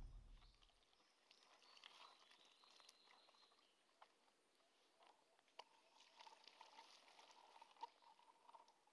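Near silence. Faint scattered clicks and crackles come as fresh bamboo shoots are peeled by hand and their sheaths stripped off.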